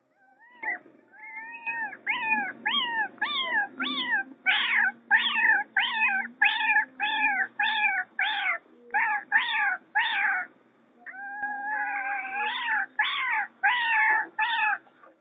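A man imitating a kitten's mewing with his mouth: a long run of short, high mews, about two a second, with one longer wavering mew about two-thirds of the way through.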